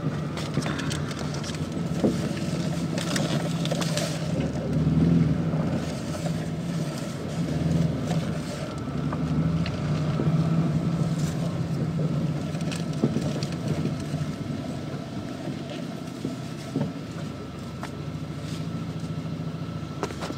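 Car engine running at low speed, heard from inside the cabin, swelling slightly about five and ten seconds in, with scattered light clicks.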